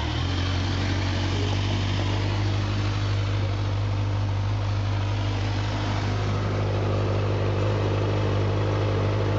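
Kawasaki Z1000's inline-four engine idling steadily in neutral, with an even, unchanging note.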